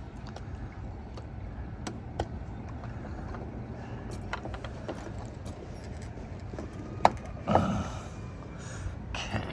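Light clicks and taps of a hand tool on an RV door lock's metal parts while a loose part is tightened, with a sharper click about seven seconds in. A steady low hum runs underneath.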